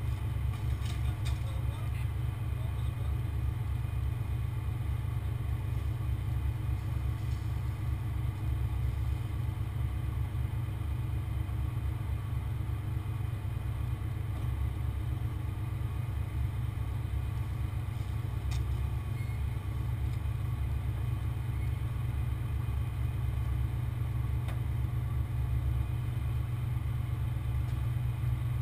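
Heavy diesel truck engine running steadily at a low, even drone, with a couple of faint clicks.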